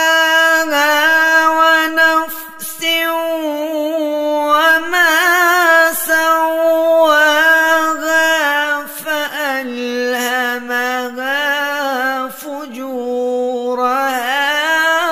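Solo voice chanting Quran recitation in long, drawn-out melodic notes with ornamented turns and a couple of short pauses. The pitch steps down about two-thirds of the way through.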